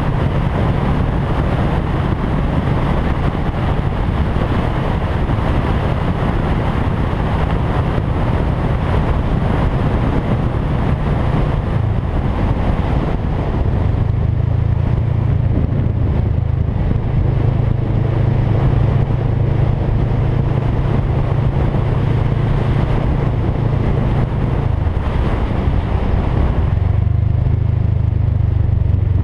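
Motorcycle engine running at road speed under wind rush on the microphone. The engine's low note shifts about halfway through and again near the end.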